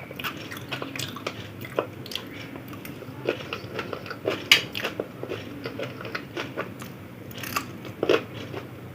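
A person chewing and crunching a mouthful of spicy aloo kabli, a potato chaat, close to the microphone: irregular wet mouth clicks and crunches, with sharper crunches about four and a half seconds and eight seconds in.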